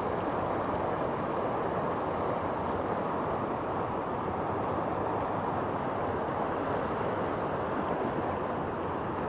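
River water rushing steadily over a shallow, turbulent stretch of current.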